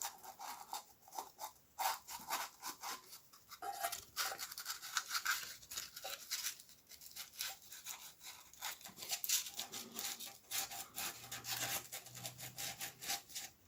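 Sanding paper scraping against the inlet valve of a Suffolk small engine's cylinder head as the valve is turned by hand against it, in quick irregular strokes. This is a light cleaning of loose particles from the valve seat, not a full valve grind.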